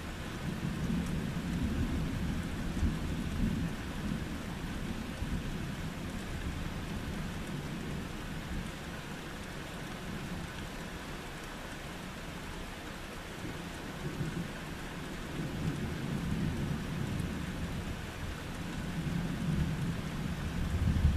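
Steady rain falling during a thunderstorm. Low rolling thunder rumbles through the first few seconds, and again, growing louder, in the last third.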